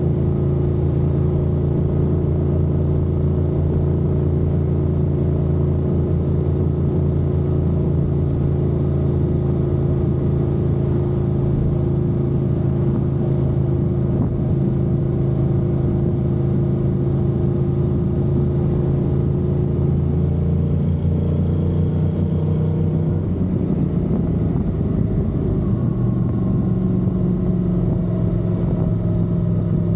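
Honda NC750X parallel-twin engine running steadily under way. Its pitch climbs a little about two-thirds of the way through, and the note changes again shortly after.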